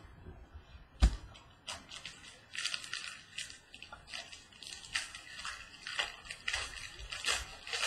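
Plastic wrapping on a trading-card mini box being crinkled and torn open, a run of short crackles, after a single knock about a second in.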